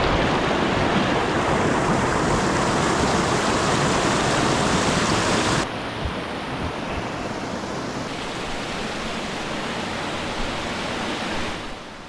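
Waterfall, a steady rush of falling water; a little over halfway through it drops suddenly to a softer, duller rush.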